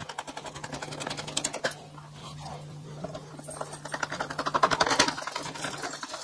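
Screwdriver driving a screw into the plastic housing of an electric ducted fan unit: a fast, uneven run of small clicks and scrapes, loudest a little past the middle, over a faint steady hum.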